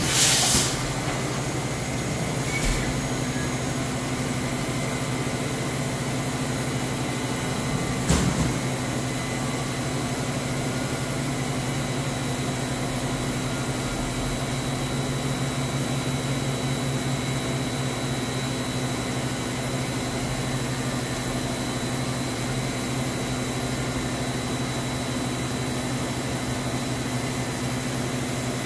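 Mazak VTC-20B vertical machining center powered up and humming steadily, with several fixed tones. A short scrape sounds right at the start and a single knock about eight seconds in.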